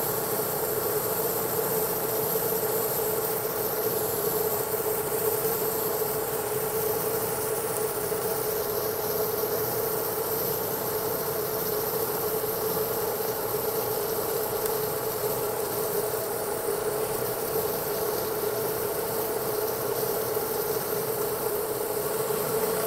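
Pressure washer running a rotary surface cleaner over stamped concrete: a steady, unbroken hum with a high hiss of spraying water as it strips organic growth from the deck.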